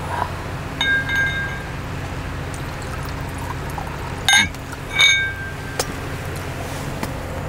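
Wine being poured into a stemmed glass, the glass ringing briefly, then two glass clinks a little under a second apart, each one ringing on, over a steady low hum.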